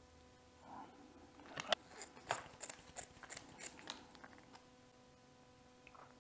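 Scissors snipping open a small plastic sauce packet, with the packet crinkling as it is handled: a string of short, sharp snips and crackles.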